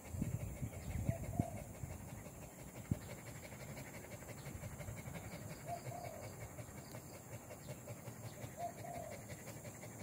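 A village dog panting steadily and rapidly.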